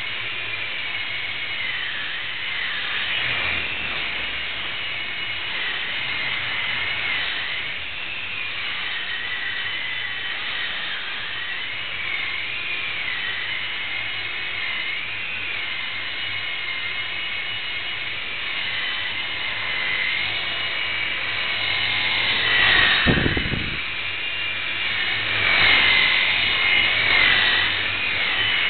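Blade mSR micro RC helicopter's small electric motors whining in flight, the high pitch wavering up and down as the throttle changes. A brief thump about three-quarters of the way through, and the whine grows louder near the end.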